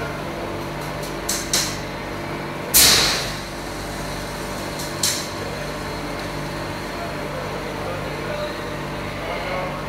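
Steady machine hum with a few sharp clicks, and one loud hiss about three seconds in that fades away within about half a second.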